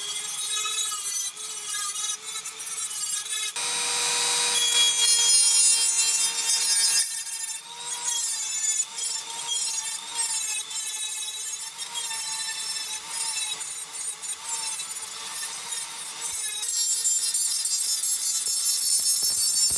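A small electric power tool running under load against a workpiece: a wavering motor whine over a gritty abrasive noise. It grows louder from about four to seven seconds in.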